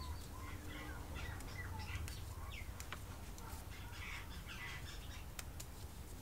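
Birds chirping in the background, a string of short calls throughout. Two sharp snips of steel bonsai scissors cutting pine shoots, about three and five and a half seconds in, over a low steady hum.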